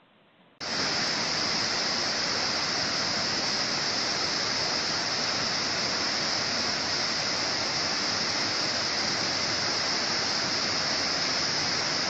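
Rain-swollen forest river in spate, brown floodwater rushing over rapids after a day of heavy rain: a loud, steady rush of water that starts abruptly about half a second in.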